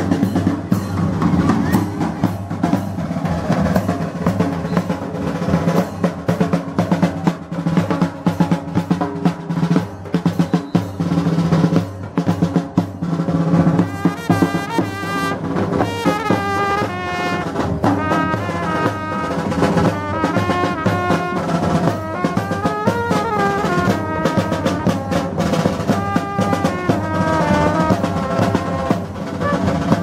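Parade marching band playing: snare and bass drums beat steadily throughout, and a trumpet melody with quick, wavering notes comes in about halfway through.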